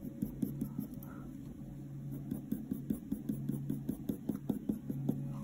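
Faber-Castell Polychromos coloured pencil scratching on hot-pressed watercolour paper in a quick run of short, light strokes, several a second, as individual hairs of fur are drawn.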